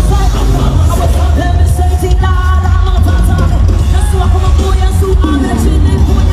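Gospel music from a live concert: voices singing over a band with a heavy, steady bass.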